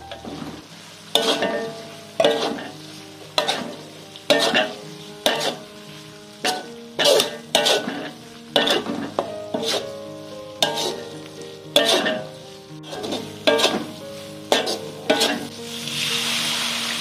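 Metal slotted turner scraping and knocking against an aluminium wok about once a second, stirring pork in sizzling spice paste. Near the end the strokes stop and water poured into the hot wok hisses.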